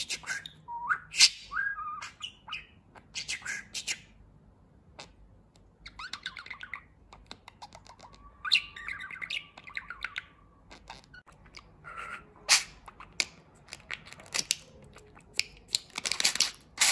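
Pet budgerigar chattering in short bursts of chirps, warbles and clicks, with one held whistled note about eight to ten seconds in.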